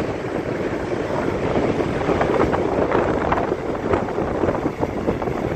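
Strong wind buffeting the microphone, a loud, continuous rumble that swells and dips in gusts.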